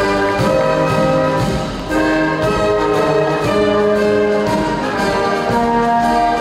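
Brass-led orchestral music, with held notes changing from one to the next.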